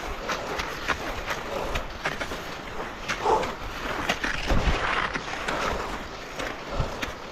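Skis sliding and scraping over snow, with many small clicks and knocks and a few heavier thumps around the middle.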